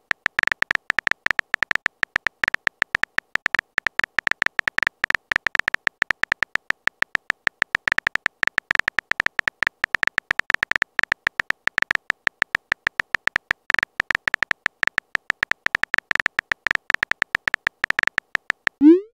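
Phone keyboard typing sound effect: a rapid, uneven stream of short, high-pitched key clicks as a text message is typed out, ending with a quick rising swoosh as the message is sent.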